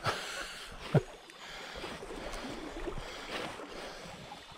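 River water flowing and lapping around a wading angler's legs, a steady wash, with a brief louder sharp sound about a second in.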